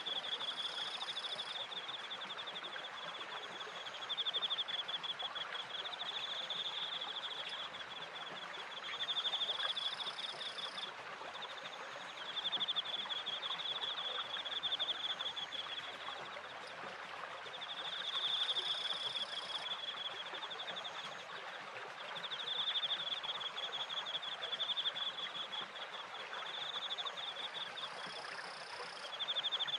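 Crickets chirping in fast pulsed trills of a second or two, coming again every few seconds, over the steady rush of water from the stream and the turning wooden water wheel.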